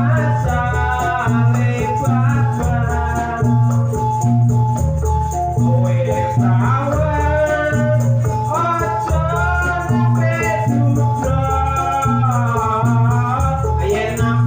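Javanese Jathilan music played loudly through a sound system: gamelan-style ensemble with a heavy repeating drum beat and steady metallic notes. A singer's wavering melodic line comes and goes over it.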